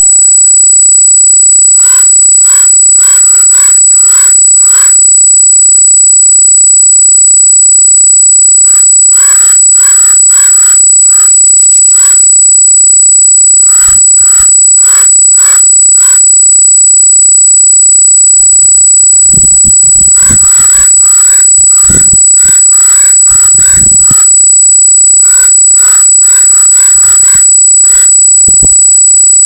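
Repeated harsh animal calls in bursts of five or six, about two a second, coming back several times. A steady high-pitched squeal, of unknown origin in the recording, runs underneath throughout, and there is low rumbling at times.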